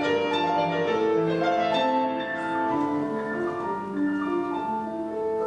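Piano playing an instrumental interlude between sung verses of a song.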